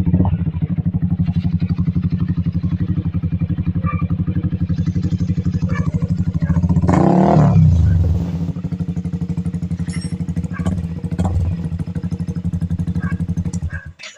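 Yamaha Sniper 155R's single-cylinder engine idling through an NLK race exhaust pipe with a steady pulsing beat. About seven seconds in, one throttle blip rises and falls back to idle, and the sound cuts off suddenly just before the end.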